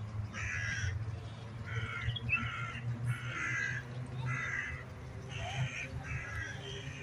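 A crow cawing: a run of about eight short, harsh caws, some in quick pairs.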